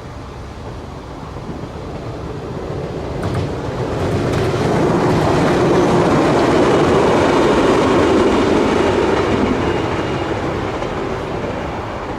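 A train passing along the track, growing louder to a peak in the middle and fading toward the end, with wheels clattering over the rails and a couple of sharp clicks as it approaches.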